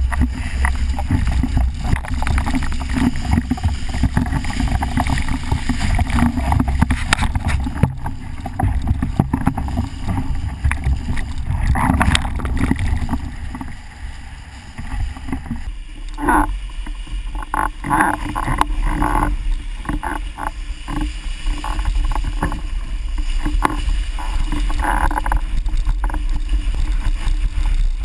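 Formula windsurf board planing fast over flat water: water rushing and spraying under the board, with wind buffeting the microphone. It eases off briefly about halfway through, then picks up again with choppy splashing.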